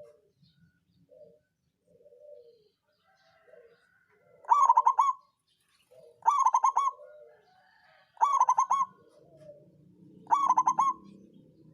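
Zebra dove (perkutut) singing: four loud cooing phrases about two seconds apart, each a quick run of staccato notes, with fainter, lower coos in between.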